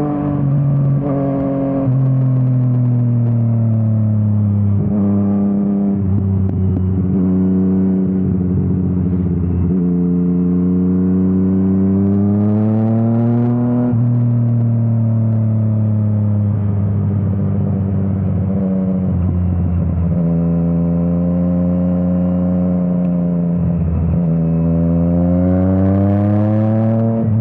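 Yamaha MT-09 three-cylinder engine through an Akrapovič exhaust under riding load, its note climbing and falling again and again as the throttle is worked, with several short breaks where the pitch drops sharply.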